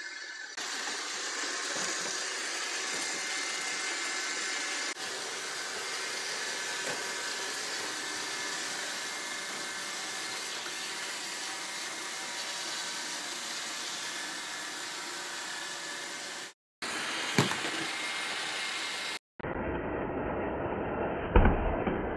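Roomba robot vacuum running: its motor and brushes make a steady whirring, broken by a few abrupt cuts, with a sharp knock about a second and a half before the end.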